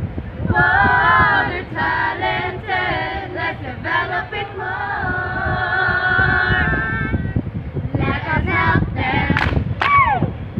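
A group of voices singing together, with a long held note in the middle and one high voice sliding down near the end.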